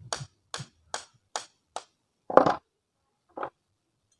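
About seven sharp knocks of wood being struck, evenly spaced at first, with the loudest near the middle and a last one near the end: tapping on a wooden hand plane to loosen the wedge and knock out its old blade.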